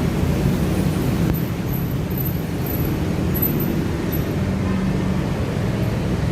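Steady low rumble of outdoor background noise, with a few faint high-pitched chirps in the middle.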